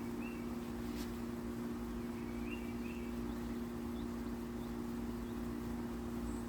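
A steady low hum, with a few faint, short high chirps and a single click about a second in.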